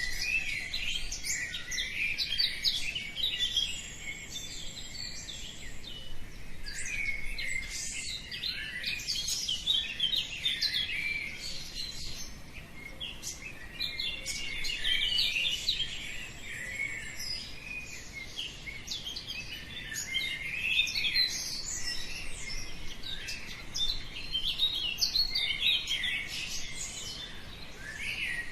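A chorus of many small songbirds chirping and singing at once, with rapid overlapping calls and short trills that swell in busy spells every few seconds.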